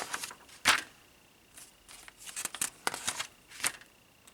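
Paper instruction booklet being handled and its pages turned: a string of short, irregular rustles and crinkles.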